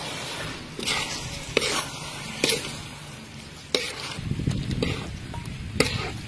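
Canned fish and Chinese kale sizzling as they are stir-fried in a large metal pan, with the spatula scraping and knocking against the pan about once a second.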